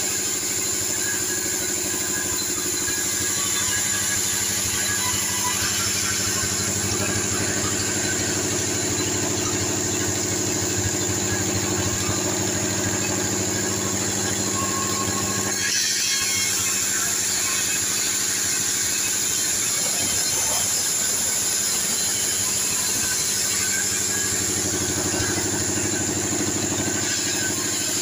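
T 36 band sawmill running and ripping sengon (albizia) logs lengthwise: a steady machine hum with a constant high tone over it, dipping briefly about halfway through.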